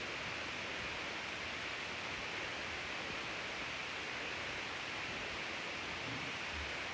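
Steady, even hiss with no distinct events: recording noise or room tone.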